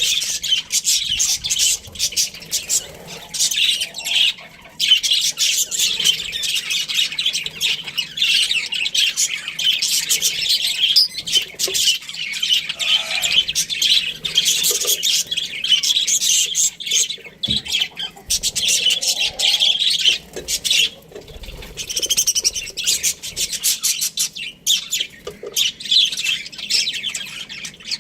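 A pair of budgerigars chirping and chattering continuously, a dense run of rapid high chirps.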